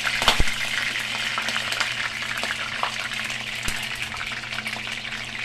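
Food frying in hot oil in a pan: a steady sizzle with dense crackling and popping, the spattering of wet food in oil. A couple of sharper knocks come near the start, and the sizzle eases slightly toward the end.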